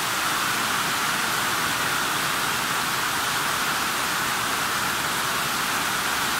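Very heavy rain: a steady, even hiss of a downpour falling on roofs and on a paved yard covered in standing water.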